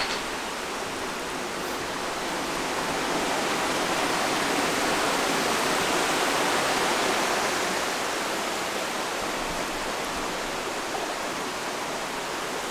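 Waterfall rushing steadily over boulders. It grows louder in the middle and eases slightly near the end.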